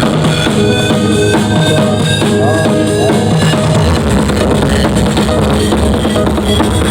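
Loud dance music with a pounding drum-kit beat and heavy bass, played through large outdoor sound systems.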